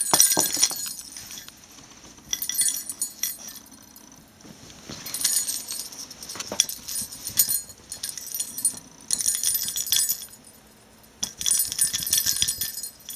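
Bell in a small wooden rabbit toy jingling and rattling as it is shaken, in about five bursts with quieter pauses between.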